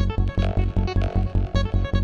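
Background music with a steady bass-drum beat about four times a second.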